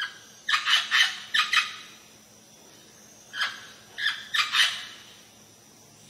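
Amazon parrot calling harshly in two bouts of quick squawks: four or five about half a second in, then four more from about three and a half seconds in.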